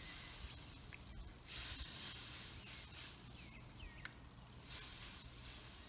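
Oil hissing and sizzling in short bursts as it is brushed onto a hot griddle.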